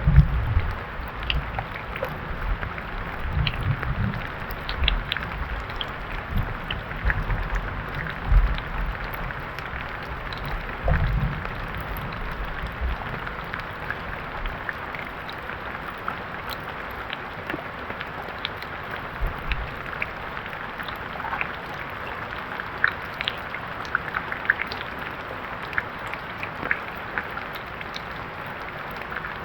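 Steady rain falling, an even hiss dotted with small drop ticks, with a few low thuds in the first ten seconds or so.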